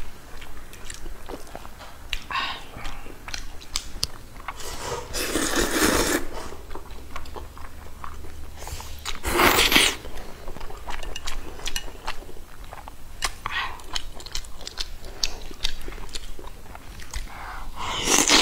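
A person eating noodles and fatty pork up close: chewing with many small mouth clicks, broken by two longer, louder slurps about five and nine seconds in.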